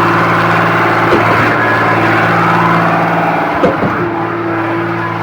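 Concrete pump running steadily, its diesel engine held at a constant pitch. A knock comes twice, about two and a half seconds apart, as the pump's pistons change stroke.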